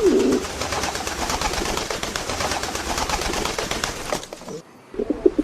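Pigeons cooing low at the start and again near the end, with a dense rustling, clicking noise in between.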